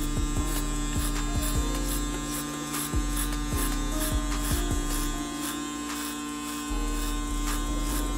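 Cordless hair clipper running with a steady buzz, fitted with a half (1/16-inch) guard with its taper lever open, cutting hair as it is drawn up the back of the head to blend a fade.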